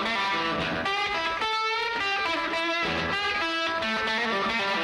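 Intro music: a distorted electric guitar plays a steady, busy run of notes.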